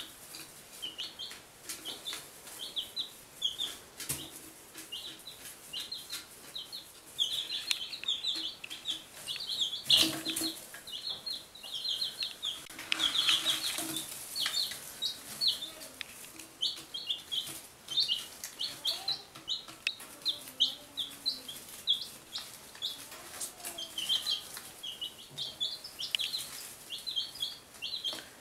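One-week-old Buff Orpington, Barred Rock and Golden Laced Wyandotte chicks peeping continuously in short, high cheeps. A few knocks break in, the loudest about ten seconds in.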